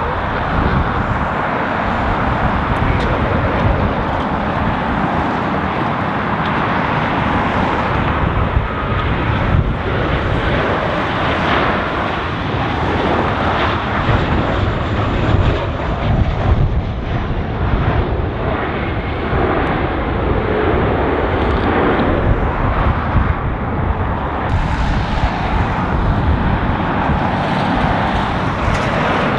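Ryanair Boeing 737-800's CFM56-7B jet engines running steadily as the airliner comes in on final approach and lands, with gusty wind buffeting the microphone.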